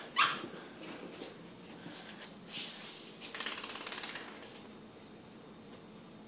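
A dog's claws clicking on a tile floor, a quick run of light clicks lasting about a second in the middle, after a brief sharp sound just after the start.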